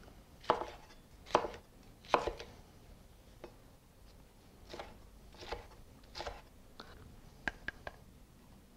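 Chef's knife cutting bell pepper on a wooden cutting board: separate knife strikes, three louder ones in the first couple of seconds, then softer, irregularly spaced cuts.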